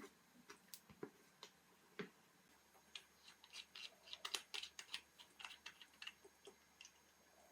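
Faint, irregular small clicks and taps of watchmaker's tools on the parts of a Breitling Navitimer during disassembly, a few spaced clicks at first, then a quick cluster about three to six seconds in.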